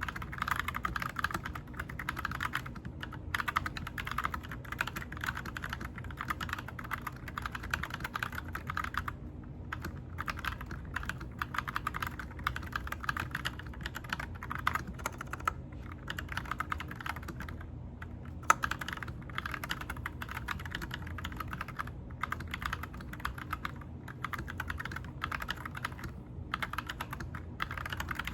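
Typing on a 65% mechanical keyboard: fast, steady runs of key clicks, broken by a few short pauses, with one sharper, louder keystroke about two-thirds of the way through.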